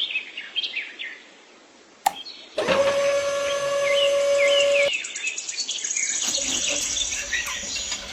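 Small birds chirping in short quick calls, with a single click about two seconds in and a steady held tone under the chirps for a couple of seconds in the middle.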